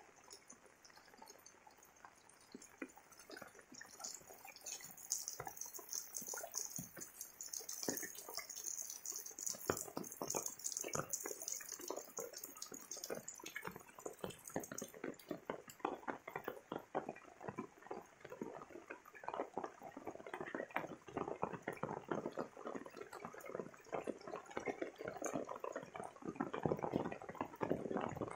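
Rain falling, with a dense, irregular run of close drops ticking; it grows louder a few seconds in.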